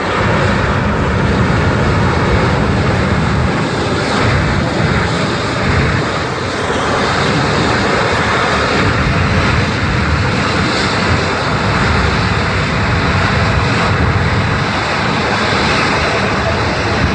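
Jet engines of a C-17 Globemaster III military transport running loud and steady, a continuous rushing engine noise.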